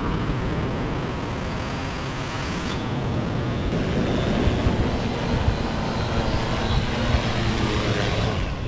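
Cuta Copter quadcopter fishing drone's propellers buzzing as it flies back in low and sets down on the sand. The buzz grows louder as it nears and eases off near the end.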